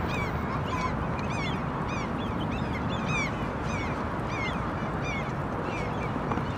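Barnacle geese and their goslings calling: many short, high calls in quick succession over a steady background rush.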